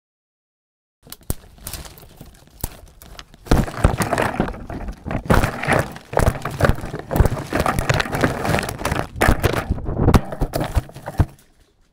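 Irregular crackling and rustling with many sharp knocks, starting about a second in after a moment of silence and dying away shortly before the end.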